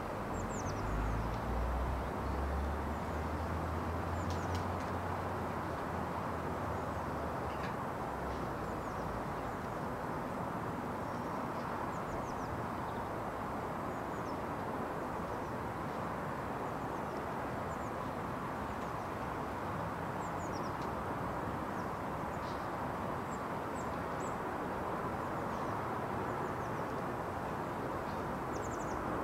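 Steady outdoor background noise, with faint, short, high bird chirps scattered throughout. A low rumble fades out over the first several seconds.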